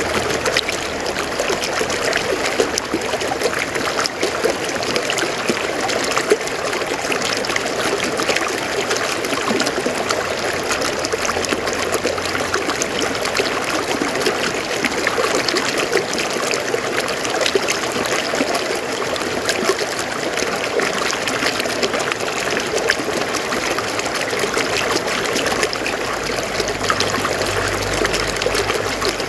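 River water flowing calmly over rocks: a steady rushing trickle, flecked with small splashes.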